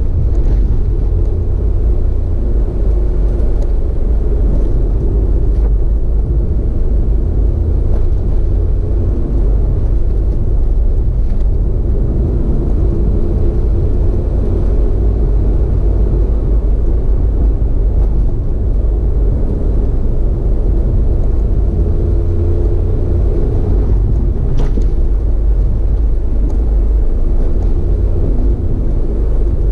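Steady low rumble of a vehicle on the move, with an engine hum above it and a few faint clicks.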